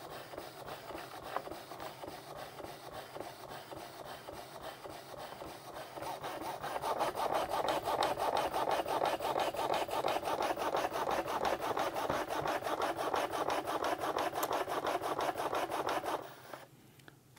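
Fleshlight Launch stroker running, its motor driving the sleeve carriage up and down with a fast, even mechanical rhythm. It grows louder about six seconds in and stops shortly before the end.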